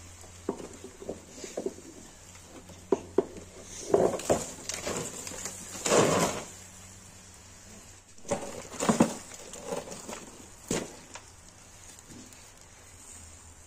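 A metal hook knocking and scraping among tandoor-roasted lamb in a plastic tub: scattered sharp clicks, with a few louder handling sounds, the loudest about six seconds in.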